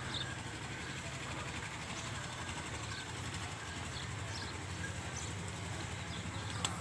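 Faint steady outdoor background noise, with a few soft, short high chirps scattered through it.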